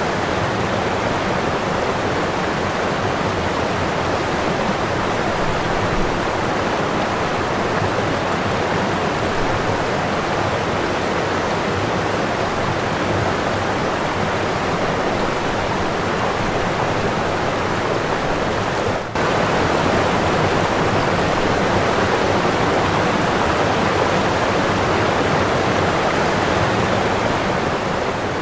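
Steady rushing noise of wind and water on the deck of a ship under way at sea. It drops out for a moment about two-thirds of the way through, then carries on unchanged.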